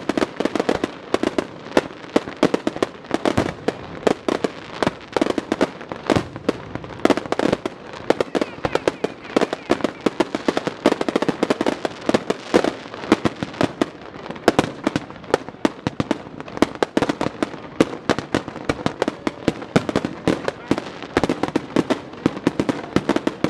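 Fireworks going off in rapid succession: a dense, unbroken run of sharp pops and crackles, several a second.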